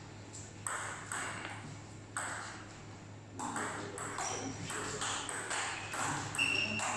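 Table tennis ball clicking off paddles and the table: a few spaced bounces, then a rally of about two hits a second from a little past three seconds in. There is a brief high squeak near the end.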